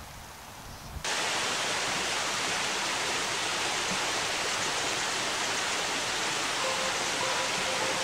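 Water rushing through a small concrete channel: a steady, even rushing noise that starts abruptly about a second in, replacing a quieter, faint high buzz.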